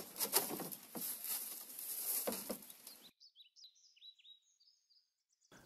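Faint rustling and crackling with a few clicks, then a small bird chirping over and over in short, high notes that fall in pitch.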